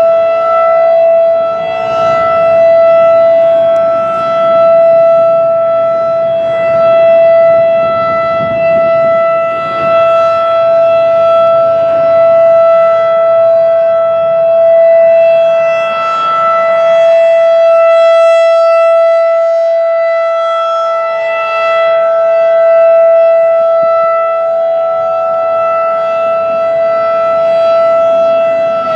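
Federal Signal 2001-DC outdoor warning siren sounding its steady alert: one unwavering high tone, swelling and dipping a little in loudness as it sounds.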